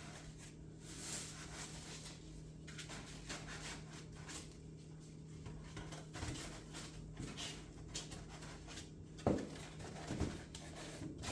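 Rustling and handling of packaging and model-plane parts during unboxing, with a couple of sharper knocks near the end, over a steady low hum.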